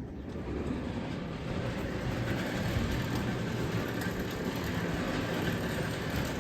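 Genie Excelerator garage door opener running steadily as it opens the garage door, the noise easing off near the end as the door stops.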